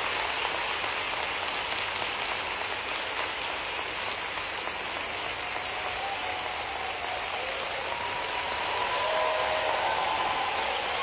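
Large audience applauding steadily in a big hall as a speaker is welcomed onto the stage.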